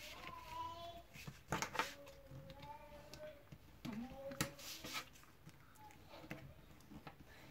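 Scored card-stock journaling cards being folded and creased by hand and with a bone folder, giving short paper rustles and a few sharp taps.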